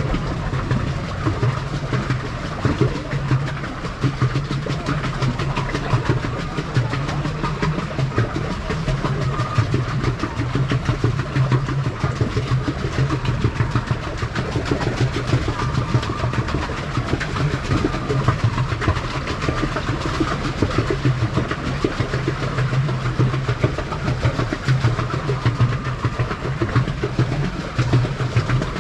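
Pedal boat under way: its pedal-driven paddle wheel churns the water with a steady low hum and a dense, rapid clatter that runs on unbroken.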